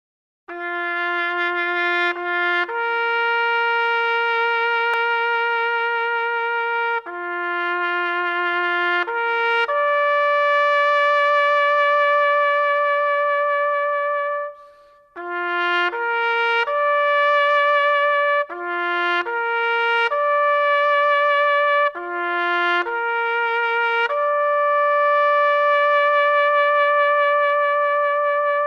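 Solo brass instrument playing a slow bugle-call melody, the kind sounded at war memorials. It plays short lower notes rising to long held notes with a wavering pitch, and stops briefly about halfway through.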